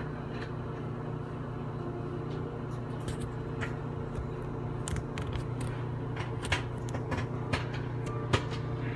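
Samsung microwave oven humming steadily while a bag of microwave popcorn starts to pop: single sharp pops, sparse at first, coming more often from about three seconds in.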